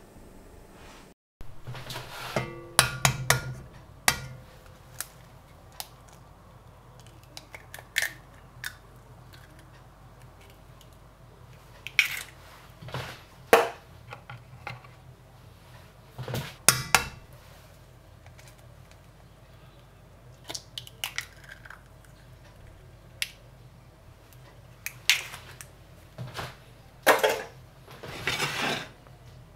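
A carbon steel frying pan and kitchen utensils being handled: scattered clinks, taps and knocks every few seconds, some with a brief metallic ring.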